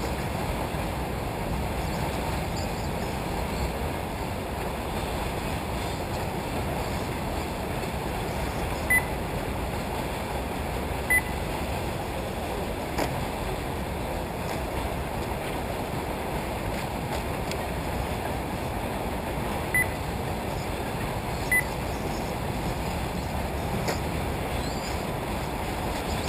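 Four short high electronic beeps from a race lap-timing system as RC short-course trucks cross the timing line, in two pairs about two seconds apart, over steady outdoor noise.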